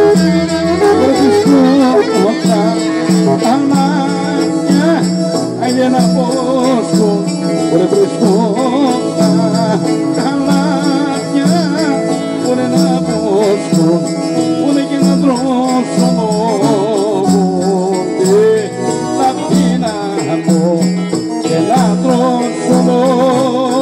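Traditional folk music playing: an ornamented melody line over a steady beat.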